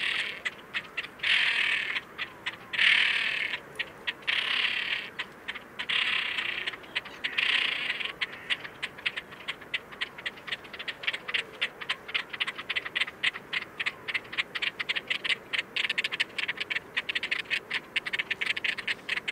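Great crested grebes giving harsh, rasping rattle calls, each about a second long, several in the first eight seconds. After that comes a dense, fast clicking rattle that carries on.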